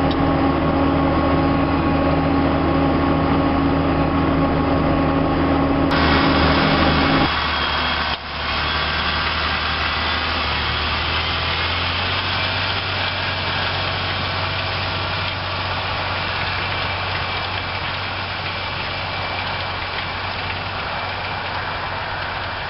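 Massey Ferguson 6475 Dyna6 tractor's diesel engine running steadily while ploughing, with a strong pitched hum at first. The sound changes abruptly about six and eight seconds in, then settles into a steadier, noisier drone.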